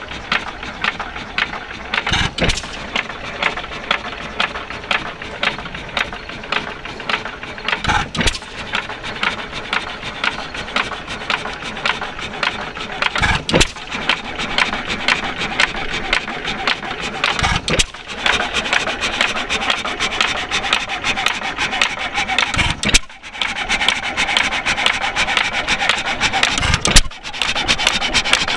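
4 hp York hit-and-miss gas engine running. It fires with a sharp bang only every four to six seconds, about six times in all, and between firings there is a rapid, steady mechanical clicking as it coasts on its flywheels.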